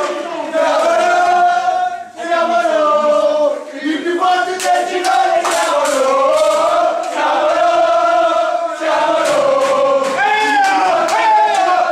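A group of men chanting a victory song together, loud shouted singing in unison, with short breaks about two and four seconds in.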